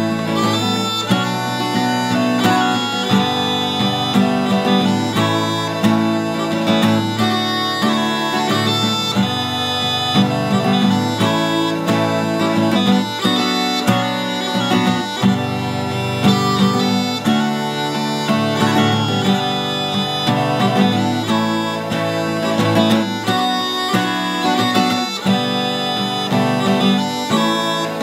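A Scottish bagpipe playing a tune over its steady drones, with an acoustic guitar strumming chords along with it.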